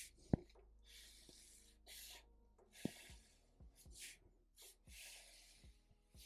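Felt-tip marker drawing on paper: a run of about ten short, hissy scratching strokes, with a sharp tap about a third of a second in and a smaller one near three seconds.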